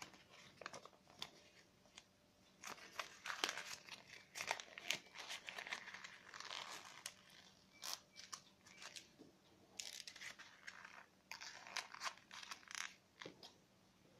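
A sheet of paper being folded and handled: faint, intermittent rustling and crinkling in short bursts.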